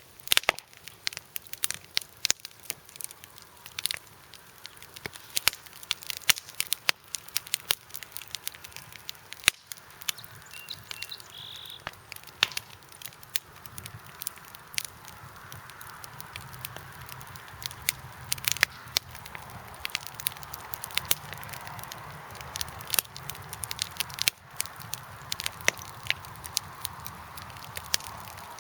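Small campfire crackling, with irregular sharp pops and snaps over a soft hiss that grows a little louder in the second half.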